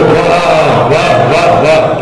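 Several voices calling out together in praise, the audience's response to a couplet just recited at an Urdu poetry recitation.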